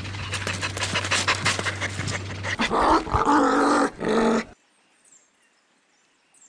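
Dog panting fast and rhythmically over a steady low hum, then about two seconds of pitched dog vocalising that bends up and down, stopping about four and a half seconds in.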